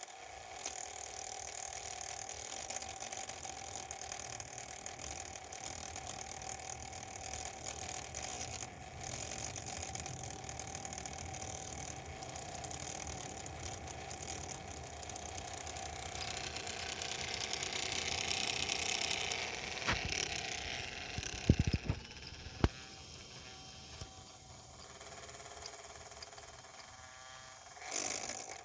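VAIO Pro 11 (SVP1121A1J) laptop cooling fan running with a rattling, grinding noise: the fan is rubbing inside the case, which the owner suspects comes from a tilted shaft. It grows louder toward the middle, and a few sharp knocks come about two-thirds of the way through.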